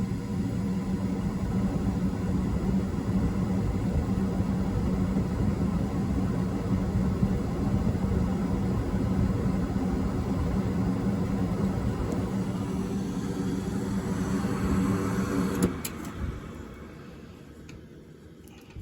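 Furnace running steadily with a low hum, then shutting off about 16 seconds in with a click, the noise dying away over the last few seconds as it winds down.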